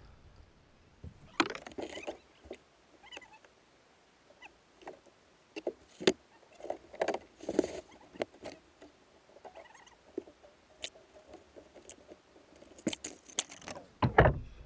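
Irregular knocks, clicks and rattles of a landing net and fishing tackle being handled in a kayak as a smallmouth bass is taken out of the net, with a cluster of louder knocks near the end.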